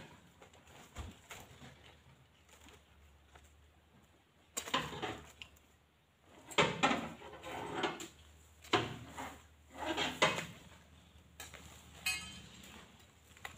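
Oil palm fruit bunches being heaved on spiked poles up onto a loaded truck, with a series of irregular knocks and clatters, about half a dozen.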